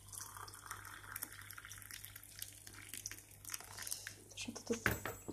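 Water poured from an electric kettle into a ceramic mug over a tea bag: a steady trickle, with a light knock near the end.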